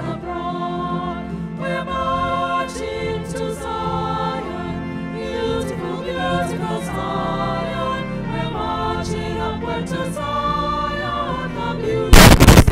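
A choir singing with accompaniment, sacred choral music. Near the end it is cut off by a sudden, very loud blast of noise.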